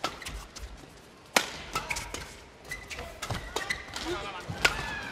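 Badminton rackets striking the shuttlecock in a fast doubles rally: a run of sharp, crisp hits, roughly half a second to a second apart.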